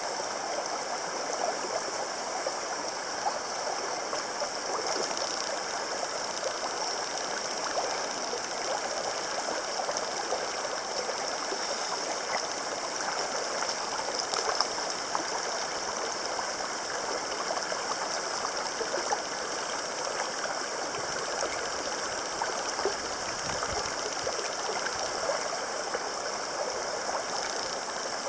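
Clear, rocky mountain stream flowing over stones, a steady even rush of water. Over it runs a steady high-pitched hiss.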